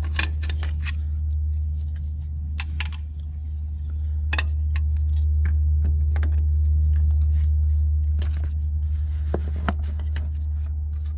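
Spring-loaded jump-starter clamps being handled and clipped onto a battery terminal: scattered sharp clicks and small metallic snaps from the clamp jaws, over a steady low hum.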